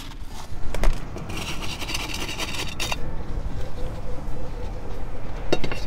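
Gravel poured from a scoop onto the soil of a potted succulent, the stones rattling for about a second and a half, with a few sharp clicks of pebbles and tools before and after.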